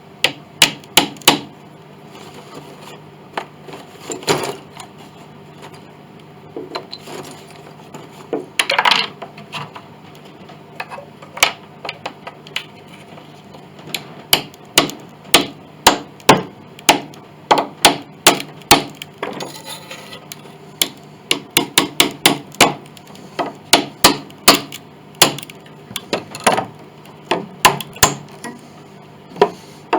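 A hammer repeatedly driving wooden wedges into a glued joint of an antique Chickering grand piano's wooden case to split it apart. The sharp strikes come in quick runs of two to five blows with short pauses between them.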